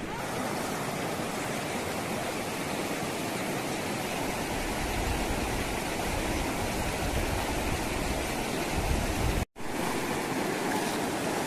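River water rushing steadily, with a low rumble from wind on the microphone in the middle and a brief dropout about nine and a half seconds in.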